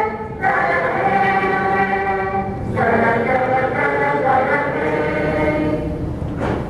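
A roomful of people singing together in unison, in long held phrases with short breaths between them; the singing stops shortly before a brief knock near the end.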